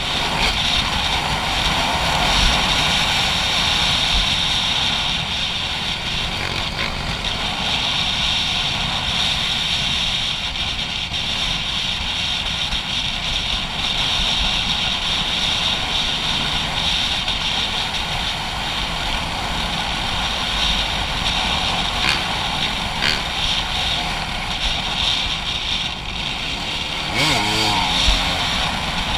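Dirt bike engine running steadily while riding, heard from a helmet or bike-mounted action camera with heavy wind rush on the microphone. Near the end the engine pitch wavers up and down briefly.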